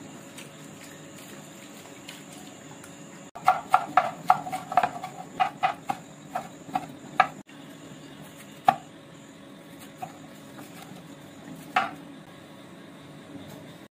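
Cleaver chopping vegetables on a wooden cutting board: a quick run of sharp knocks, about three a second, then a few single strikes spaced well apart.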